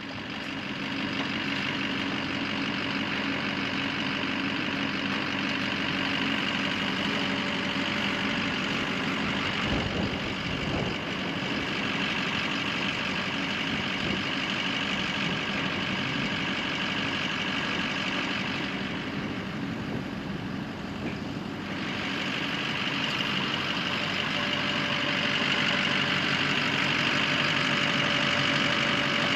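An engine idling steadily, with a brief dip in the upper tones about two-thirds of the way through.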